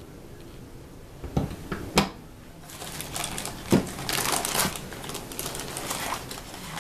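A few sharp clicks of the diecast counterweight pieces of a 1:50 scale model crane being set down, then plastic wrapping crinkling and rustling as model parts are handled in their foam packaging.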